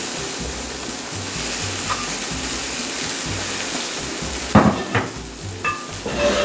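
Corn cachapa batter sizzling in a hot buttered nonstick pan, a steady hiss. Near the end come a few sharp knocks and short clinks of the spoon against the pan.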